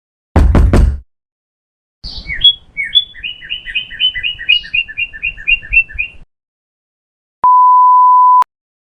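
A string of comedy sound effects: a short burst of knocks, then a quick run of high bird-like chirps for about four seconds, then a one-second 1 kHz censor bleep.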